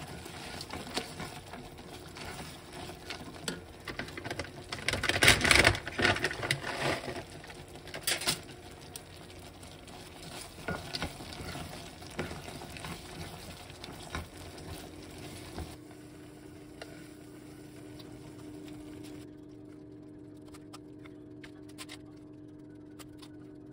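Butter, cream and sugar caramel bubbling in a pot while cereal flakes and sliced almonds are stirred through it with a wooden spoon, a busy crackling, bubbling and stirring sound that is loudest about five seconds in. After about two-thirds of the way through it gives way to a quieter steady hum with a few light clicks.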